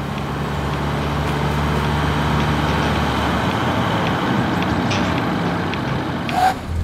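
Engine of an old Volga sedan approaching, its steady low running sound and road rumble growing louder, with a short sharper burst near the end as it pulls up.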